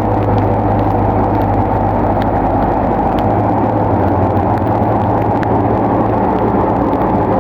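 Bulldozer's diesel engine running steadily under load, a low even hum with a few faint clicks.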